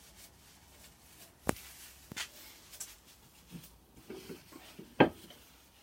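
Workshop handling sounds: a few sharp metallic clicks and knocks, the loudest about five seconds in, with a couple of brief faint squeaks between them.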